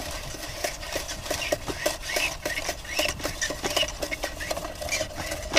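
Line being pulled out of a spring-loaded retractable clothesline reel, the spool giving a rapid, uneven run of small clicks with faint squeaks as the line comes off.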